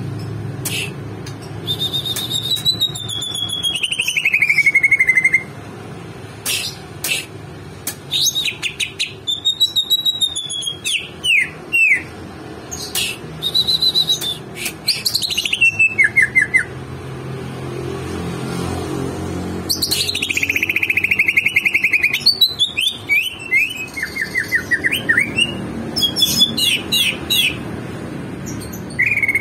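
A bird chirping and calling over and over, with short sharp chirps and several longer trills that fall in pitch.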